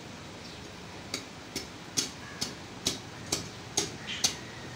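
A butcher's cleaver chopping through a mutton carcass onto a wooden chopping block: a steady run of sharp chops, about two a second, starting about a second in.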